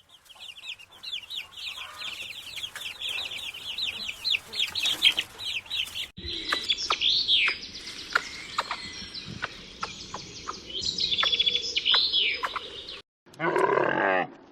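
Chickens calling: rapid high peeping for about six seconds, then after a sudden cut, clucks and high rising-and-falling calls. Near the end comes a short, lower, harsher call from another animal.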